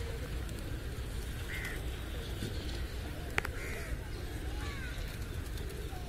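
A huge flock of pigeons feeding, with crows cawing a few times, each call short and hoarse, over a steady low rumble. There is one sharp click a little after three seconds.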